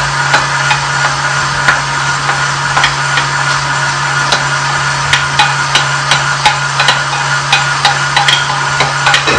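Stand mixer's meat-grinder attachment running with a steady motor hum, with frequent sharp clicks and knocks, a few a second, as mince is pushed down the feed tube with the stomper. The mince is going through the grinder a second time to give it a firmer bind.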